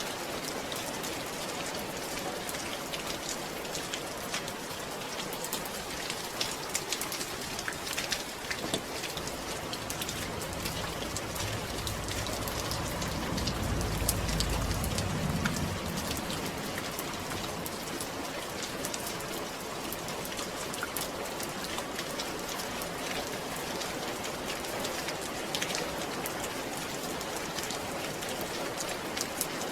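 Steady rain falling on a surface, with many fine drop ticks. A low rumble swells and fades about halfway through.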